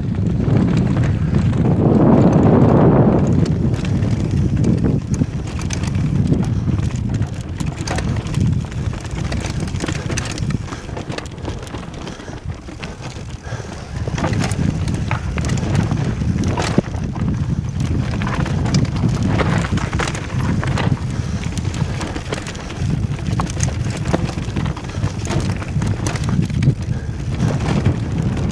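Wind buffeting a helmet-mounted camera's microphone as a mountain bike runs fast down a rocky trail, with constant rattling and clacking from the bike and tyres hitting stones. A louder gust of wind comes about two seconds in, and the noise eases for a couple of seconds past the middle before picking up again.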